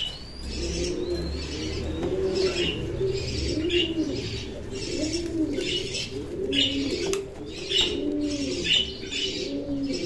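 American Fantail pigeons cooing over and over, a steady run of low, rolling coos that rise and fall, about one a second.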